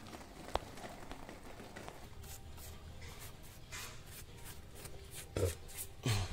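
A brush scrubbing the wet aluminium fins of an LG wall-type air conditioner's indoor coil in short, crisp strokes, about three a second from about two seconds in, with two louder thumps near the end.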